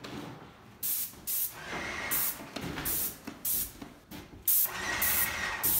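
Airless paint sprayer's gun spraying paint onto drywall in a string of short hissing bursts as the trigger is pulled and released. The coat is being misted on lightly.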